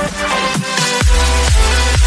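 Electronic dance music: a kick drum with a falling thump on each beat and sustained synth chords, with the bass dropping out briefly before the beat comes back in about halfway through.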